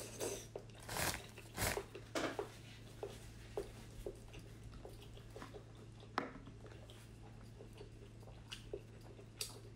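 Close-miked eating sounds: a mouthful of braised pork being bitten and chewed, with several loud wet smacks in the first couple of seconds, then quieter chewing with scattered mouth clicks and one sharp click about six seconds in. A steady low hum runs underneath.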